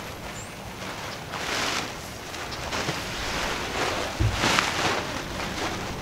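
Nylon inflatable lounge chair rustling and whooshing as it is swung through the air to scoop air into its chambers, in a few swells with the loudest about four and a half seconds in. Wind buffets the microphone with low thumps about four seconds in.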